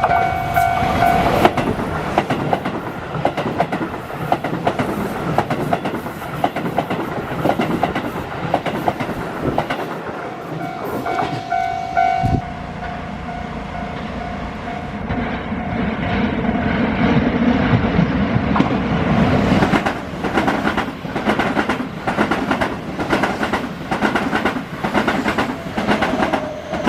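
Keihan 3000 series electric trains passing over a level crossing: a dense clatter of wheels over the rails, then a lower hum that builds and spaced, regular wheel clacks near the end. A held tone sounds briefly at the start and again around eleven seconds in.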